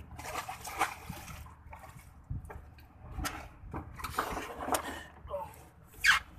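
Irregular splashing and knocking as skipjack tuna are handled and dropped into a water-filled styrofoam fish box, with a few sharp knocks in between.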